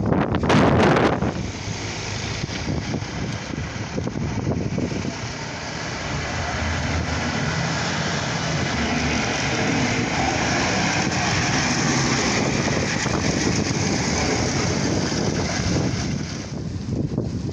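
Blizzard wind blowing as a steady rush, with gusts buffeting the microphone at the start; the rush swells slowly and eases near the end.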